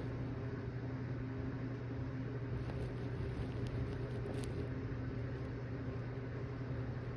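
A steady low mechanical hum with an even background hiss, and a few faint ticks near the middle.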